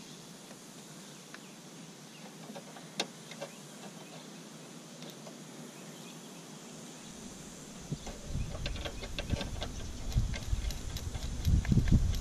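Faint clicks and scrapes of a brake line's threaded fitting being worked by hand into a new brake master cylinder, with one sharper click about three seconds in. From about eight seconds in, a low rumble joins and the clicking gets busier and louder.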